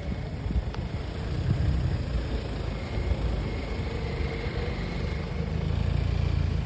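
Steady street traffic: nearby vehicle engines running, heard as a continuous low rumble.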